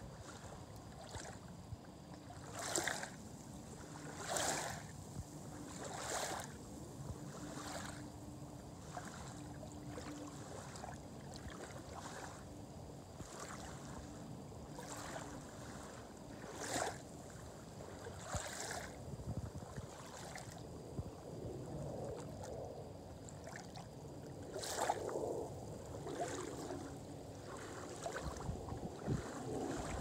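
Small waves lapping and splashing at the shoreline, in irregular splashes a second or two apart, with a low rumble of wind on the microphone.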